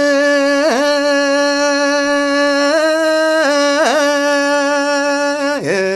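A man singing Ethiopian Orthodox Yaredic chant (zema) solo and unaccompanied, holding long steady notes joined by short ornamented turns. The pitch drops lower near the end.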